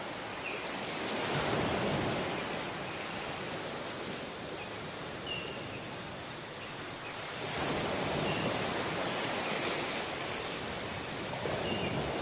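Ocean waves washing in, a steady rush of surf that swells louder twice, with a few faint short chirps now and then.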